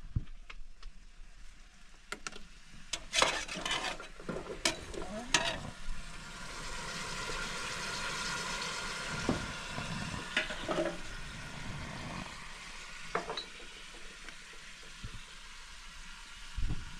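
Potatoes and onions frying in an aluminium pot with a steady sizzle, strongest in the middle, while a metal spoon knocks and scrapes against the pot several times in the first few seconds and a few more times later.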